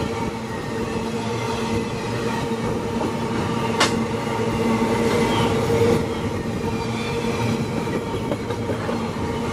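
Empty iron-ore hopper wagons of a freight train rolling past close by: steel wheels on rail giving a steady rumble with a few held ringing tones, and one sharp metallic clank about four seconds in.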